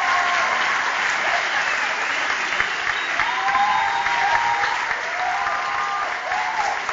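Audience clapping and cheering, with high-pitched shouts rising and falling now and then over the steady applause.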